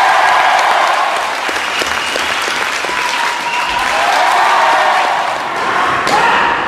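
Large arena crowd applauding, a dense steady clatter of clapping with voices calling out over it.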